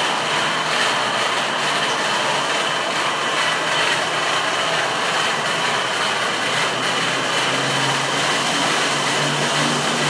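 Automatic in-bay car wash machinery running over a car: the gantry with its spinning brushes makes a steady rushing noise with a thin high whine. A low hum comes in during the second half.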